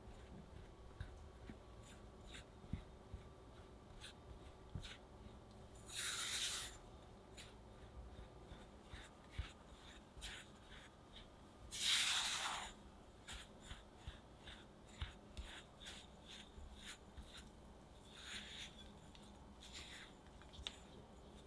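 Spatula scraping and tapping against a glass mixing bowl as flour is cut into crumbly matcha cookie dough: many small clicks and taps, with two longer scrapes about six and twelve seconds in, the second the loudest.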